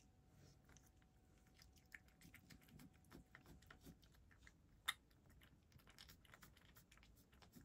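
A cat eating small dry pieces from a shallow dish: faint chewing and crunching, with light clicks as it works at the food. There is one sharper click about five seconds in.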